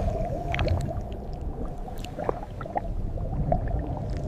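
Low underwater rumble with scattered short wet clicks and pops, a dark soundscape of the kind used for a fish inside a living host's body.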